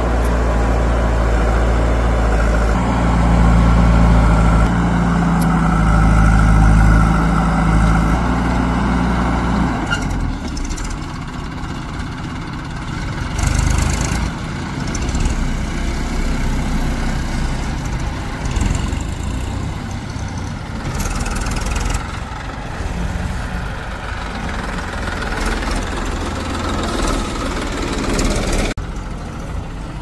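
Heavy diesel engine of farm or earth-moving machinery running. It is loud and steady for about the first ten seconds, then drops to a quieter, rougher running with a few short bursts of noise.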